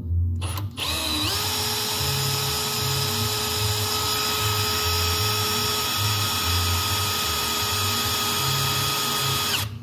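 Cordless drill running at a steady high whine, drilling into the mower's steel body at a strobe light's mounting hole. It spins up about a second in, rising slightly in pitch, and cuts off just before the end. Background music with a steady beat plays underneath.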